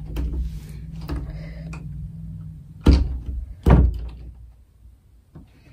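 A door thudding twice, two sharp knocks less than a second apart about three seconds in, after a low rumble.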